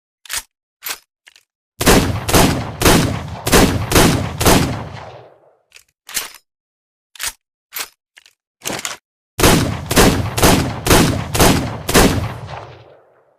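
Revolver gunshot sound effect: a few sharp mechanical clicks, then six shots fired in quick succession about half a second apart, each echoing and trailing off. More clicks follow, then another volley of six shots that fades out near the end.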